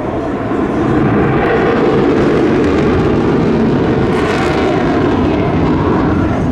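Loud, steady jet noise from an F-22 Raptor's twin Pratt & Whitney F119 turbofan engines flying overhead, swelling about a second in, with a brief hissing brightening near the middle.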